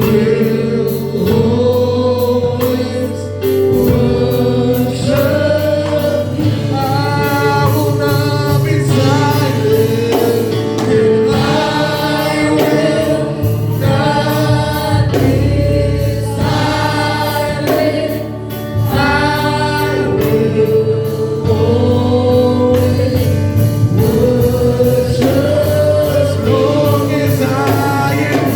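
Gospel choir singing over sustained bass accompaniment.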